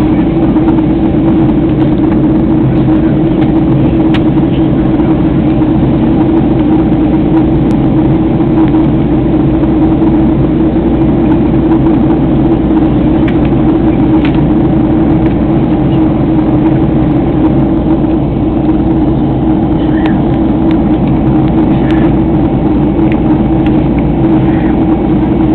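Steady loud drone of an airplane in flight, heard inside the cabin: engine and airflow noise, unchanging throughout.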